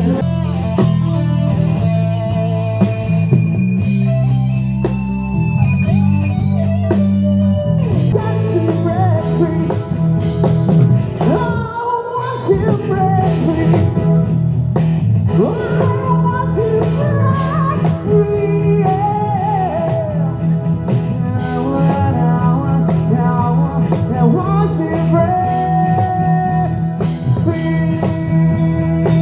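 Live band playing rock music, a singer over guitar and drums.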